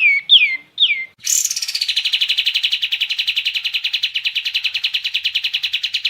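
Kapas tembak songbird singing: three quick downslurred whistles, then after a brief pause a long, fast, even trill.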